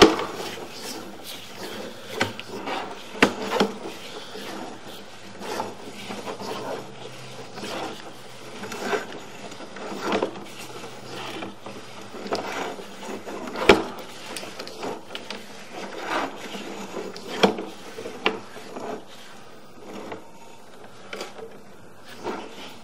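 Sewer inspection camera's push cable being fed by hand into a cleanout, rubbing and scraping irregularly with a sharp knock every second or two. It quiets over the last couple of seconds.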